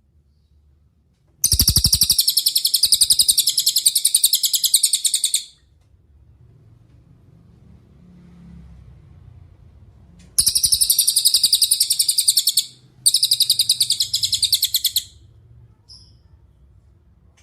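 Cililin songbird singing three long, rapid, high-pitched trills of fast repeated notes: the first lasts about four seconds, then after a pause two more of about two seconds each come close together.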